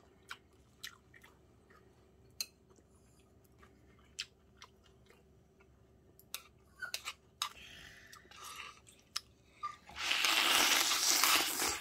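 Someone chewing and crunching food with scattered crisp bites. Near the end comes a loud, even rushing noise lasting nearly two seconds.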